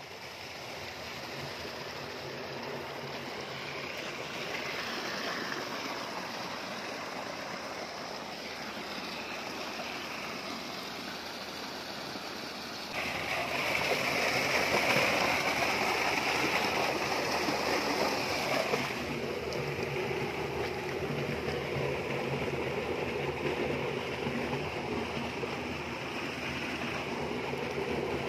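Irrigation water rushing along an earthen channel. About halfway through this gives way to louder gushing and splashing as a tubewell's steel outlet pipe pours pumped water into a brick tank.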